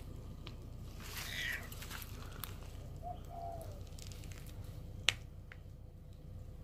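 Birds calling: a short falling call about a second in, then two short low arching notes about three seconds in. A single sharp click comes a little after five seconds.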